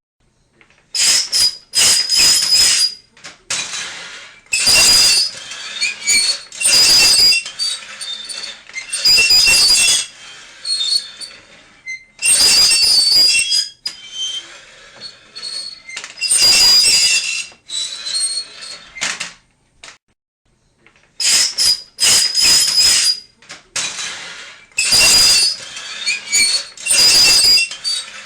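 Harsh, high-pitched squealing scrapes, over and over in bursts of about a second with short gaps, starting about a second in and pausing briefly a little after the middle.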